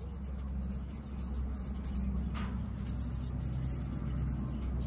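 Gloved fingertips rubbing metal polish onto the stainless steel blade of a Case XX Backpacker pocket knife: soft, irregular rubbing and scratching over a steady low hum.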